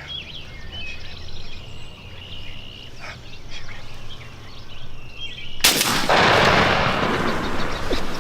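A single shotgun blast about five and a half seconds in, fired at a wild turkey at close range, followed by about two seconds of loud, rushing noise. Before the shot, small birds chirp faintly.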